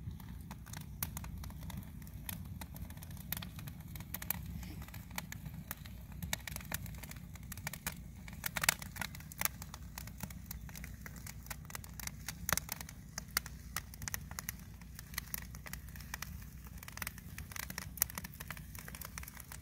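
Wood fire crackling and popping in a steel campfire ring: irregular sharp snaps over a steady low rumble.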